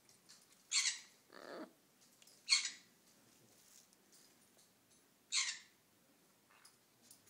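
Macaw giving three short, harsh squawks a couple of seconds apart, with a lower, longer call just after the first.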